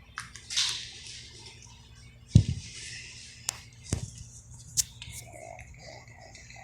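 Handling noises: a brief rustle, then two heavy low thumps and a couple of sharp clicks.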